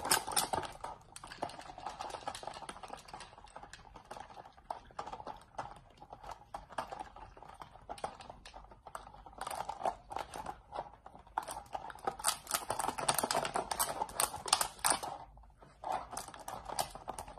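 Rapid, irregular plastic clicks and taps as two dachshund puppies paw and nose at the slotted lids of plastic puzzle feeder bowls. The clicking comes in busier runs in the second half.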